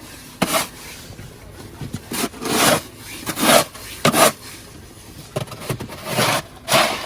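Snow shovel scraping and digging into deep, packed snow: about ten short scrapes at an uneven pace.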